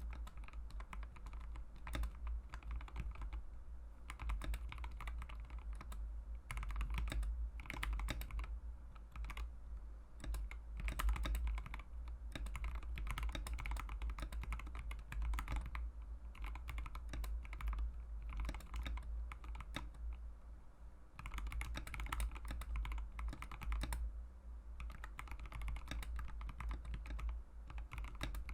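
Mechanical keyboard with Mauve linear switches being typed on in a continuous fast run of key presses.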